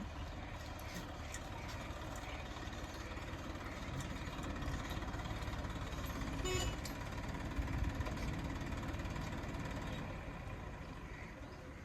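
Heavy diesel engine of earthmoving machinery running steadily, with a sharp metallic clank about six and a half seconds in.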